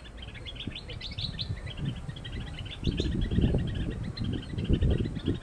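Small birds chirping in a rapid, continuous chatter of short high notes. From about three seconds in, a louder low rumble on the microphone joins it.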